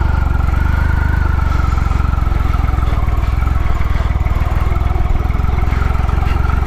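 Motorcycle engine running steadily: a continuous low rumble with a faint steady whine above it.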